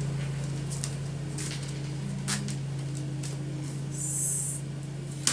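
A steady low mechanical hum runs throughout, with a few soft swishes of tarot cards being handled and a brief hiss about four seconds in.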